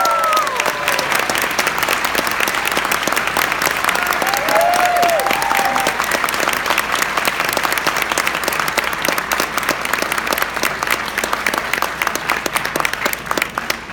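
Audience applauding, a dense, sustained clapping with a voice calling out about four to five seconds in; the applause starts to thin near the end.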